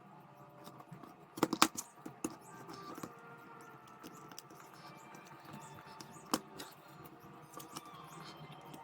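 Small sharp clicks and taps from handling the parts of a vintage electronic calculator during reassembly: a quick cluster of clicks about a second and a half in, the loudest moment, and another single click about six seconds in.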